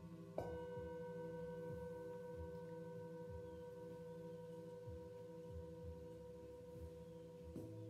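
Metal singing bowls ringing. One bowl is struck with a mallet about half a second in and rings on in a long steady tone, over the evenly pulsing lower tones of bowls still sounding. Another strike comes near the end.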